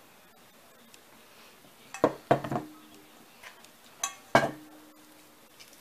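Stainless steel mixing bowl clanking as dough is kneaded by hand in it: three knocks about two seconds in and two more about four seconds in, each leaving a short metallic ring.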